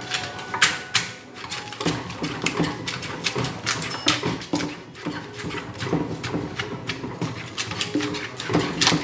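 Wooden pestle pounding shredded green papaya and tomatoes in a clay mortar, with a spoon turning the mix, in a steady rhythm of about two strokes a second.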